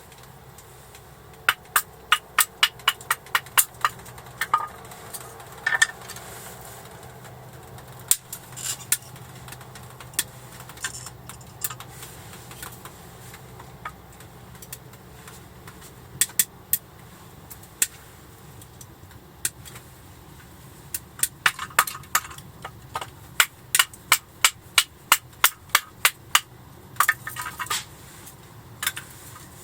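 Runs of sharp knocks, about three a second, with single knocks scattered between them.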